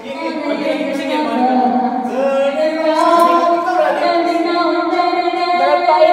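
Background music with a melody of long held notes.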